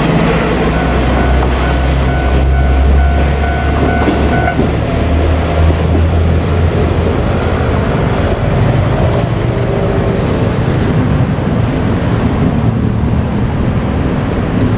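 JR Kyushu KiHa 47 two-car diesel railcar set going by: a loud, low diesel engine drone with steady running noise. The drone fades after about six seconds, leaving steady rolling noise. A thin high tone rings for the first few seconds.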